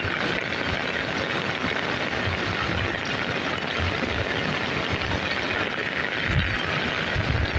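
Steady rain falling, an even hiss, with a few low rumbles near the end.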